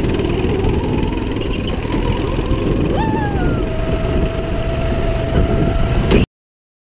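Go-kart engine running steadily under the driver at speed, with a whine that drops in pitch about three seconds in and then holds steady. The sound cuts off abruptly near the end.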